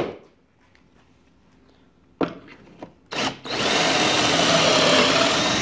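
Cordless drill boring a pocket hole into a pine board held in a benchtop pocket-hole jig: a short burst about three seconds in, then a loud steady drilling run from a little past halfway on. Before it, a sharp click at the start and a knock about two seconds in as the board is set and clamped in the jig.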